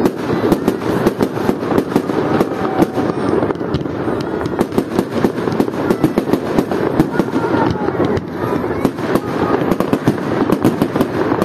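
Fireworks display: a dense, unbroken run of bangs and crackles from aerial shells bursting, many a second.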